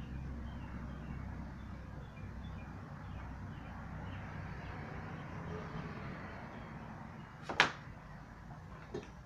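Steady low hum, broken about seven and a half seconds in by one sharp knock of a hard object handled on the worktable, with a smaller click just before the end.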